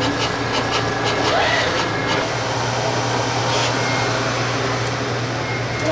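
Automated liquid-dispensing machine running: a steady mechanical whir over a constant low hum, with a rapid run of clicks, about five a second, during the first two seconds.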